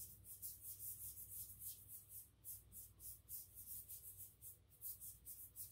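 Faint soft swishing of a paintbrush stroked back and forth across watercolour paper, about three or four strokes a second.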